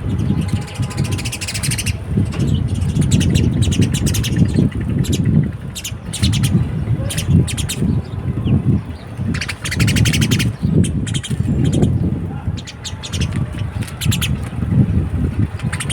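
Small birds chirping in repeated quick bursts of high chips and trills, over a continual low rumble.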